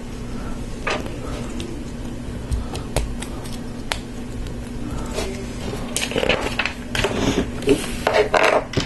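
LEGO Technic plastic pieces clicking as they are handled and pressed together, a few separate clicks at first, then a denser clatter of parts knocking on the tabletop in the last few seconds.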